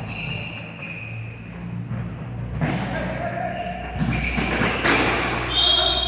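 Thuds of a ball and players' feet on an indoor court floor in a large, echoing hall, mixed with voices from players and spectators.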